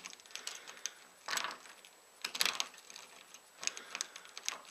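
Hook pick and tension wrench working the pin tumblers of a Kwikset doorknob lock, lifting the pins one by one: faint, irregular metallic clicks and short scrapes.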